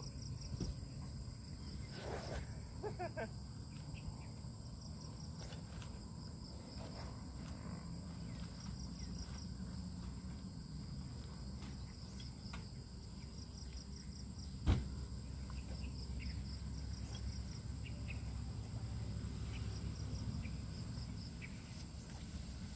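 Insects chirping in repeated trains of short, rapid pulses over a steady high-pitched drone, with a low outdoor rumble underneath. A single sharp knock sounds about 15 seconds in.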